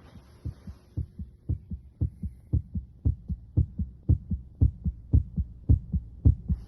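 Heart sounds heard through a stethoscope over the pulmonic area of the chest: a steady, regular lub-dub, about two beats a second.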